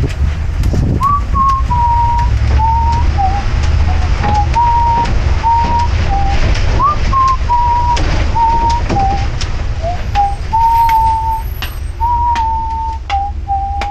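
A person whistling a slow tune: a run of clear held notes stepping up and down, the opening phrase coming round again. The delivery truck's engine and road rumble run low underneath.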